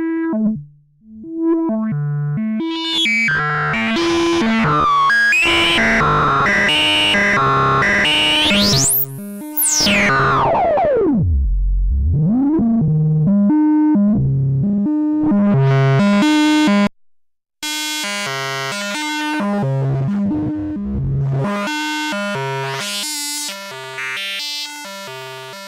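Schlappi Engineering Angle Grinder analog eurorack oscillator and waveshaper playing a stepped sequence of short synth notes, its tone changing as the damping control is turned up, which works like turning a filter's resonance down. About a third of the way in a sweep climbs high and then dives to a deep low, and the sound cuts out briefly about two thirds through.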